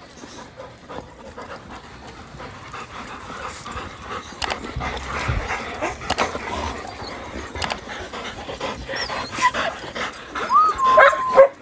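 A crowd of dogs panting close by, growing louder, with a short high whine near the end.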